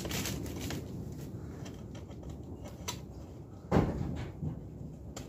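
ATV engine parts being handled on the bench: a few light clicks and one dull knock about three and a half seconds in, over a steady low rumble.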